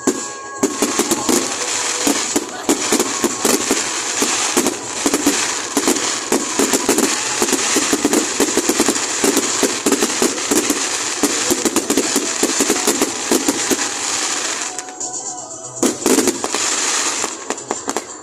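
Fireworks going off in a rapid, dense volley of crackling bangs for about fifteen seconds. The volley breaks off briefly, then a second short burst follows near the end.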